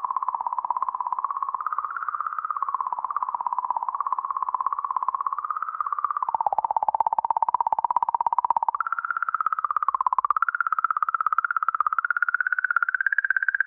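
The 'singing' of comet 67P/Churyumov–Gerasimenko: oscillations in the magnetic field around the comet, recorded by the Rosetta probe and raised 10,000 times in frequency to be audible. It is a wavering electronic tone with a rapid flutter. The pitch dips about six seconds in, steps up about nine seconds in, and sits higher near the end.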